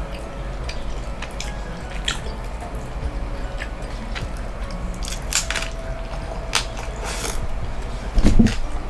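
A person eating hard-shell tacos close to the microphone: scattered crisp crunches of the shell between bites and chewing, with a louder low sound near the end.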